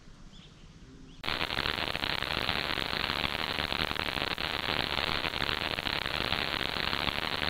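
Loud, steady static hiss with a fine crackle, cutting in abruptly about a second in: a TV-static sound effect marking the smartphone breaking down.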